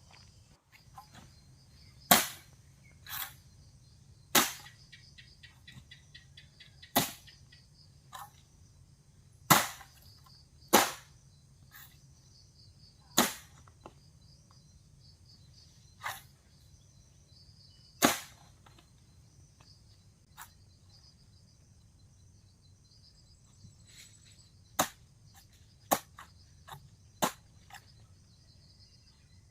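Hand hoe striking the earth in a string of sharp knocks, one every one to three seconds and bunched more closely near the end, while soil is piled round the base of arecanut palms.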